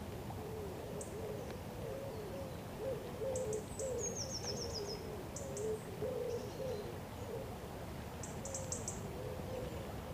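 Bank-side birdsong: low, repeated cooing calls run through, with small birds giving short high chirps and one quick descending trill about four seconds in. Under it is the steady rush of a fast-flowing river.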